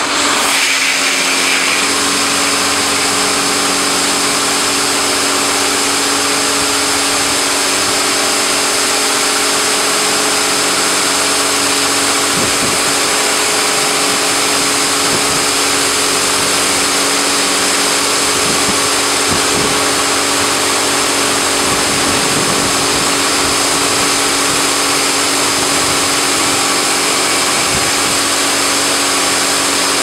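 High-pressure water jets from the gantry arm of an AA4C AA-360RD touchless car washing machine spray a car with a steady loud hiss. Beneath it runs the even hum of the machine's pump motor.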